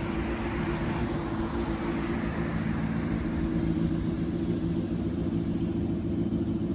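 Road traffic going by on a city street over a steady low hum. A few faint, short, high chirps, like small birds, come about four and five seconds in.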